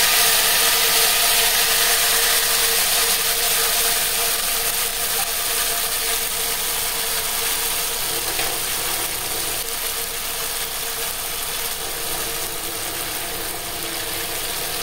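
Ground onion-garlic spice paste sizzling and crackling in hot oil in a kadhai, the sizzle loud at first and slowly getting quieter.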